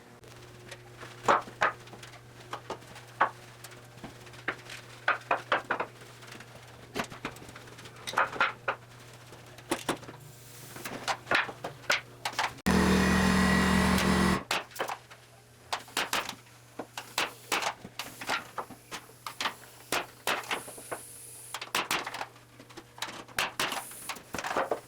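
Workshop work noises: a scattered series of knocks and clicks over a steady low hum, with a loud, noisy burst lasting about two seconds about halfway through.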